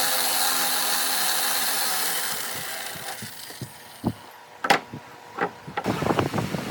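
A woodworking power tool runs and winds down to a stop about three seconds in. It is followed by a few sharp knocks on wood and, near the end, a rapid run of small scraping clicks from hand work on the wood.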